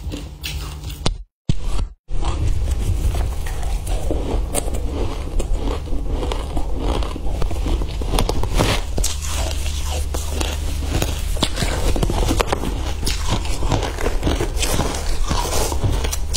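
Shaved ice dusted with matcha powder crunching as it is chewed close to the microphone: a dense, continuous crackle of small crunches. The sound cuts out briefly twice in the first two seconds.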